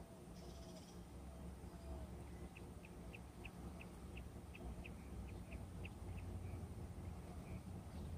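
A bird chirping a quick run of short high notes, about three a second, over a low steady hum.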